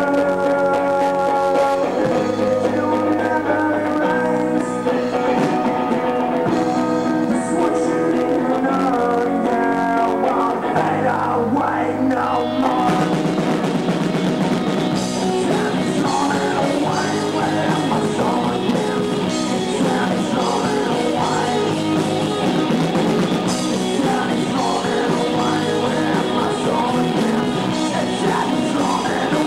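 Rock band playing live: held electric guitar chords ring for about the first twelve seconds, then drums and sung vocals come in with the full band.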